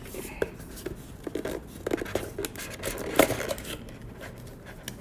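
A trading-card pack or box being torn open by hand, with packaging crinkling and rustling in short, irregular bursts.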